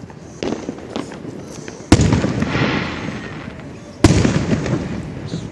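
Aerial fireworks shells bursting overhead. There are a couple of smaller pops early, then two loud booms about two seconds apart, each trailing off in a long rumbling echo.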